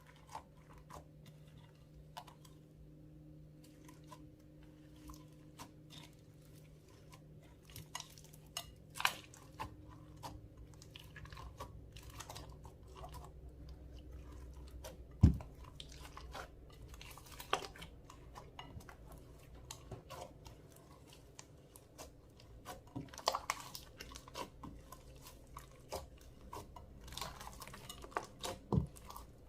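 Clear slime being worked by hand, giving irregular wet, sticky clicks and small pops, with one sharp pop about halfway through.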